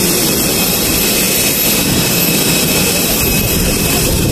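Steady loud rush and whine of a parked jet airliner's turbine, with a low rumble of wind on the microphone.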